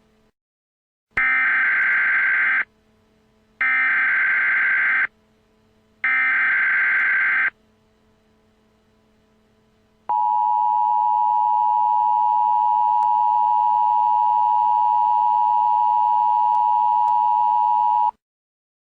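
Three bursts of Emergency Alert System SAME header data, each a harsh digital screech about a second and a half long with a second's gap between them. Then comes the two-tone EAS attention signal, held steady for about eight seconds and cutting off suddenly. Together they mark the start of an EAS tornado warning.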